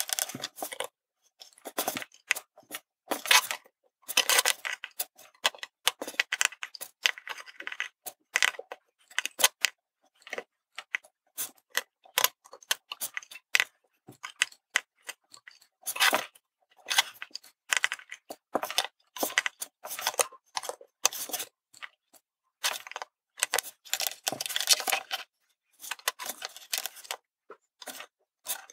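Irregular small clicks and taps of metal tweezers and a circuit board being handled on a wooden table while surface-mount components are placed and soldered by hand, coming in clusters with short quiet gaps.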